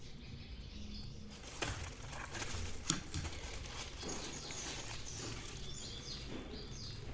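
Rustling and scraping of a speaker's retail packaging being handled and opened, with a couple of sharp clicks near the start and short high squeaks later on.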